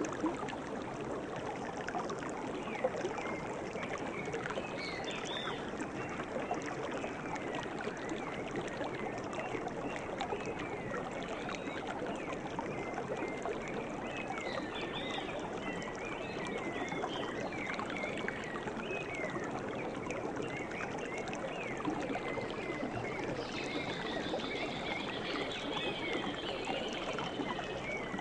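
A stream running steadily, with small birds chirping throughout and a falling trill near the end.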